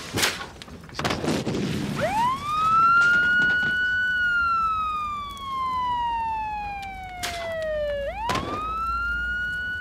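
A siren wailing: its pitch climbs quickly about two seconds in, holds, then sinks slowly for several seconds before climbing again near the end. A few short sharp hits sit around it, near the start and again just before the second climb.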